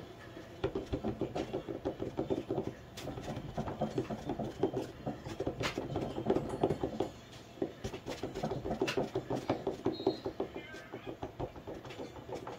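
Hands rolling clay coils back and forth on a wooden board: a soft, rapid rubbing and patting, with a short pause about seven seconds in.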